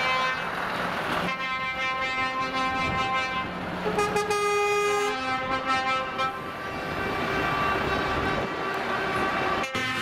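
Truck air horns sounding in long, steady blasts, the pitch changing from one blast to the next, over the noise of trucks driving.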